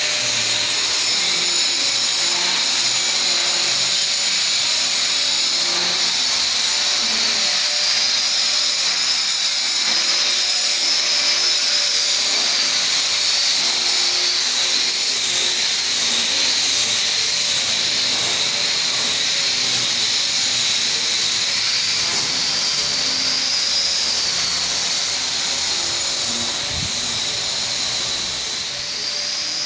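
A machine's steady high-pitched whine over a continuous hiss, its pitch drifting slightly up and down, dipping a little near the end.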